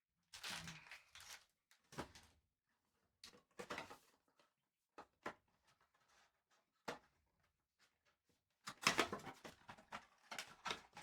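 Faint rustling, tearing and clicking as trading-card packaging is handled and torn open, busiest near the end.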